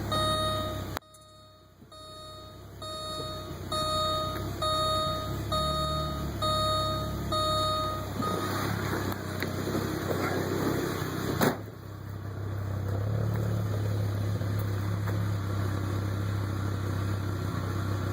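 Car warning chime beeping about once a second for several seconds, then a sharp click, after which the Audi UrS4's turbocharged inline-five settles into a steady idle. The owner says that once warm this engine hunts for idle and misfires.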